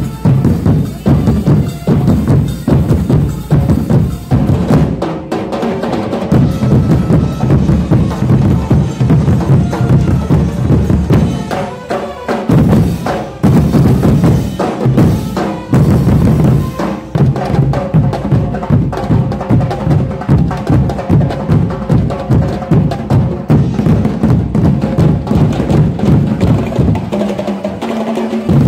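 Street-dance drum line: large bass drums on stands beaten with mallets in a fast, driving rhythm, with sharp clicking strikes over the deep drum beats and a few brief breaks in the pattern.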